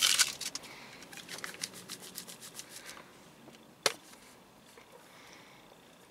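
Plastic wrapper of a boba straw torn open and crinkled, with a run of small crackles. About four seconds in comes a single sharp pop as the straw punches through the sealed plastic film lid of the boba cup.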